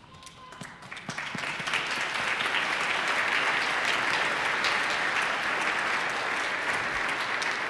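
Congregation applauding, building up over the first second or two and then holding steady.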